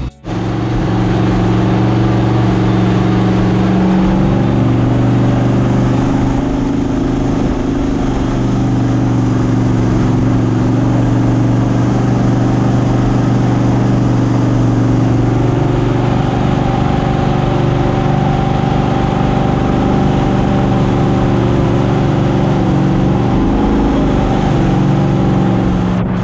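Mini jet boat's engine running steadily under way, its pitch shifting slightly a few times.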